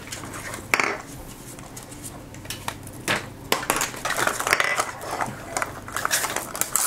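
Small plastic pieces clicking and knocking on a tabletop and a foil wrapper crinkling as a 5 Surprise Mini Brands capsule ball is handled and its foil peeled, with a sharp click about a second in.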